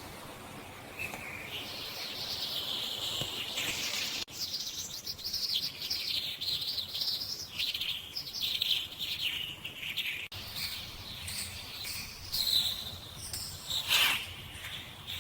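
Birds chirping in a busy stream of high, quick calls, with one louder call near the end.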